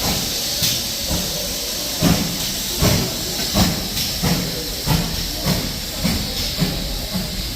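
Steam locomotive chuffing as it pulls away, its exhaust beats quickening from about one a second to about two a second over a steady hiss of steam.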